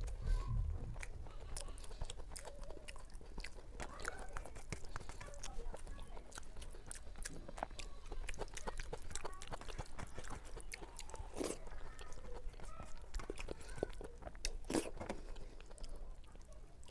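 Close-miked chewing and crunching of crisp fried food, with many sharp crackles and wet mouth clicks and two louder crunches near the end.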